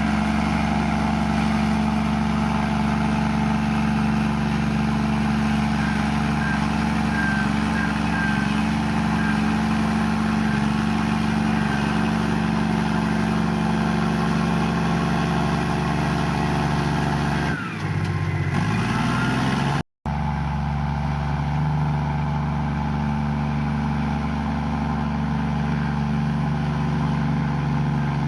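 Komatsu bulldozer's diesel engine running steadily, its note dipping and then climbing back up about eighteen seconds in. The sound cuts out for an instant just before twenty seconds, then carries on.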